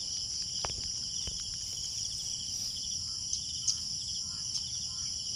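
Steady, high-pitched chorus of insects, with a few faint clicks in the first second and a short sharp tick a little past halfway.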